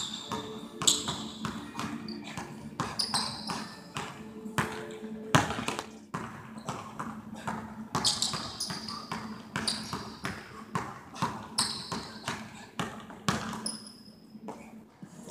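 Basketball dribbled on a hardwood gym floor, bouncing repeatedly and unevenly, with short high sneaker squeaks several times, echoing in a large gym.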